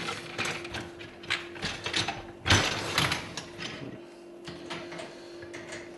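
Plastic dishwasher rack fittings of a Samsung DW60M6050FW clicking and clattering as they are handled and adjusted, a quick run of clacks with the loudest about two and a half seconds in and again at three seconds.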